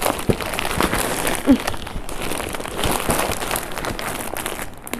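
Crinkling and rustling of garment packaging as packed nighties are handled and pulled out, with many small crackles throughout.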